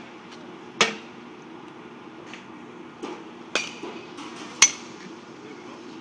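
Batting-cage sounds: a bat striking pitched baseballs, several sharp knocks a second or so apart, the loudest about two-thirds of the way through with a short ring. A steady low hum runs underneath.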